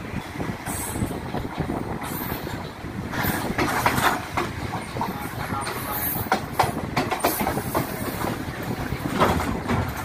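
Passenger train running along the track, its wheels clattering over the rails with a steady rumble and irregular knocks and rattles, heard from a carriage window.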